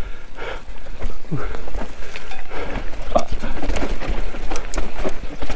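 Mountain bike descending a very steep, rough trail: steady wind rumble on the camera mic, with irregular knocks and clatter from the bike over the ground.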